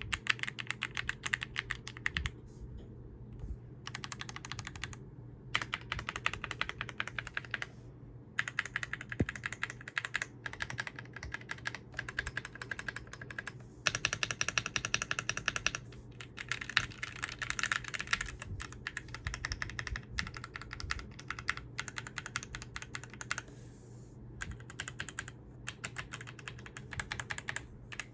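Typing sound test on a Yunzii YZ87 75% mechanical keyboard: fast runs of key clicks and clacks from its switches, in bursts of a few seconds broken by short pauses.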